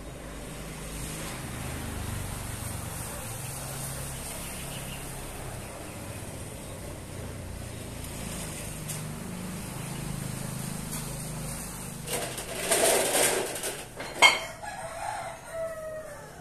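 A rooster crowing loudly near the end, its call trailing off in a falling tone, with a sharp knock in the middle of it. A low steady hum runs underneath before the crow.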